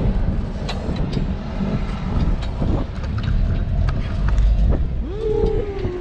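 A small open-sided vehicle running as it drives, with a steady low rumble and its frame and load rattling. Near the end there is a short pitched sound that rises and then falls.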